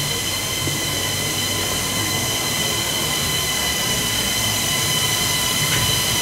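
Steady machine noise: an even hiss with a high whine made of several fixed tones over a low rumble.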